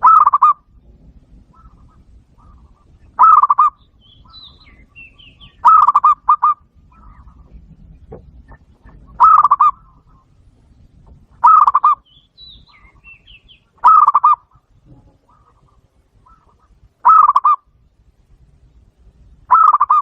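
Zebra dove call played through a Bluetooth speaker: a short, stuttering, pulsed coo repeated eight times, about every two and a half to three seconds. Faint, higher chirps of small birds sound between the calls.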